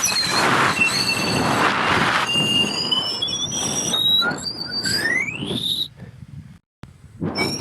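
High-pitched squealing in several drawn-out tones, with a rising squeal past the middle. It cuts out briefly near the end, then starts again.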